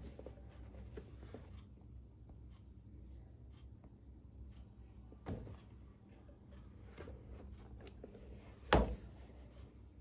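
A toy's cardboard box handled and turned over in the hands: faint scuffs and small clicks over a low steady hum, a soft bump about five seconds in and a sharper knock near the end.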